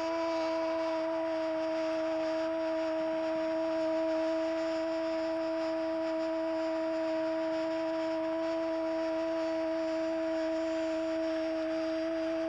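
A football commentator's long "goooool" cry for a goal, held on one steady pitch, over faint crowd noise.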